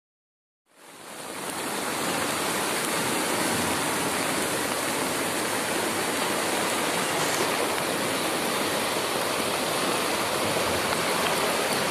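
Swollen, muddy floodwater rushing steadily past in a stream running in spate after heavy rain. The sound fades in just under a second in, then holds steady.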